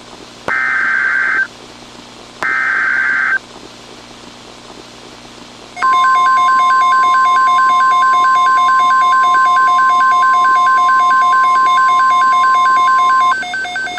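EAS SAME header data bursts, two shrill warbling one-second squawks with faint hiss between them, followed by the NOAA Weather Radio 1050 Hz warning alarm tone: a steady loud beep held for about seven seconds, with a fast-pulsing electronic tone layered over it. Together they signal that a weather alert message is about to be broadcast.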